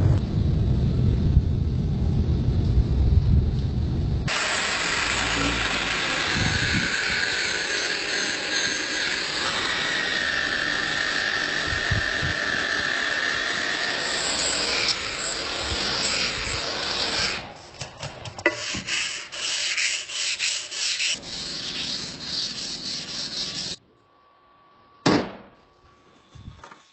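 A low rumble for about four seconds, then a long stretch of steady abrasive sanding on the knife's steel. Near the end this breaks into a run of short scraping strokes, followed by a single sharp click.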